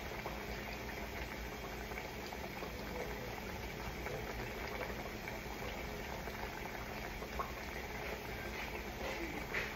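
A pot of food boiling on an electric stove burner: a steady bubbling hiss with small pops, a few sharper ones near the end.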